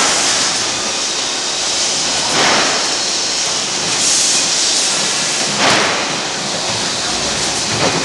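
Steady din of a fish-processing line: conveyor machinery running with a constant hiss, broken twice by a brief clatter.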